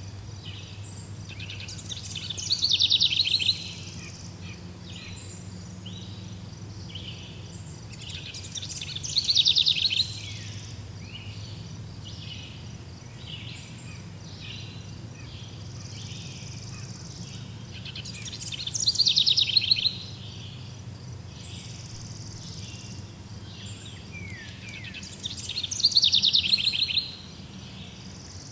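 A songbird singing: four loud, fast trilled phrases, each building up over a second or two and repeating about every seven to nine seconds, with softer short chirps in between. A faint steady low hum runs underneath.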